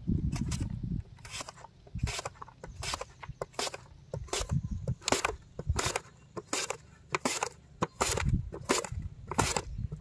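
Raw potato pushed in repeated strokes across the steel blade of a plastic mandoline slicer, each stroke shaving off a thin round chip slice with a short rasp, about one stroke every three-quarters of a second.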